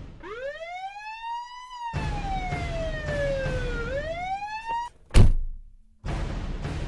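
Police car siren wailing: the pitch rises, falls slowly, then rises again before cutting off about five seconds in. A single loud thud follows right after.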